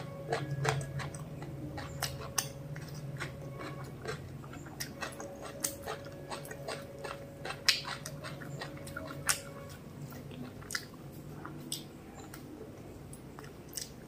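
Close-miked chewing of a mouthful of mutton biryani: wet mouth clicks and smacks at an irregular pace, with a steady low hum underneath.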